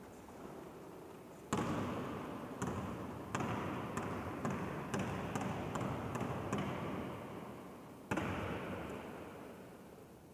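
A basketball bouncing on a gym floor, echoing through a large empty hall: a hard first bounce, then bounces coming quicker and quicker as the ball settles. Another loud bounce comes near the end and dies away in the echo.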